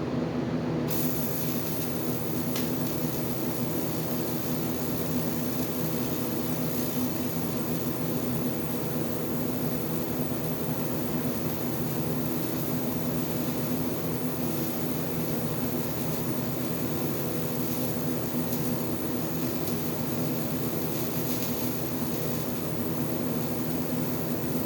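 Die grinder running steadily, prepping cracks in an old aluminum bracket, with a constant whine over a hiss.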